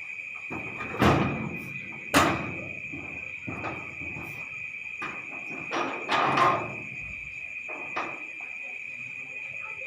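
Crickets chirring steadily, with several sharp thumps and knocks over the first eight seconds, the loudest two about a second in and a second after that.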